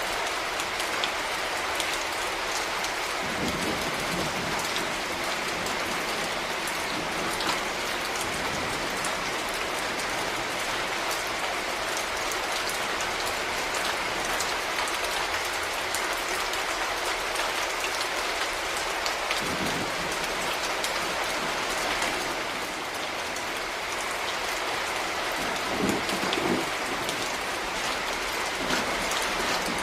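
Steady rain falling and pattering on surfaces, an even hiss throughout. Three short, low thuds stand out, about three seconds in, near the middle and near the end.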